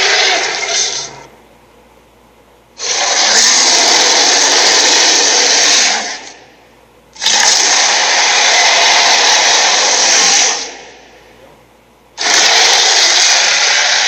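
Sharptooth, the animated tyrannosaur, roaring over and over: three long, harsh roars of about three seconds each with short gaps between them, and the tail of an earlier roar fading at the start.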